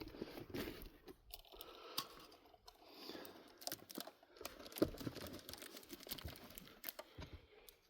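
Aluminium beer cans being handled and turned over, with scattered light taps, clicks and crinkles.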